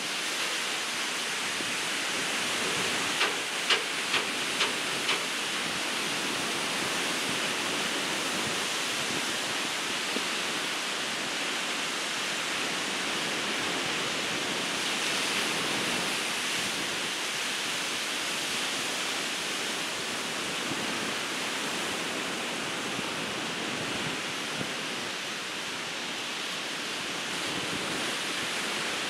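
Ocean surf breaking on a beach, a steady wash of noise. About three seconds in come five quick clicks, roughly two a second.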